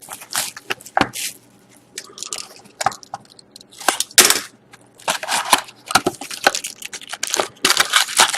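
A sealed box of hockey trading-card packs being opened by hand: wrapping crinkling and tearing and cardboard and packs rustling in irregular bursts, with a few sharper cracks.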